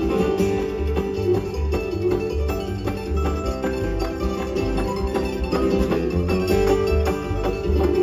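Bluegrass band playing live with no singing, banjo to the fore over acoustic guitar, fiddle and a walking upright bass.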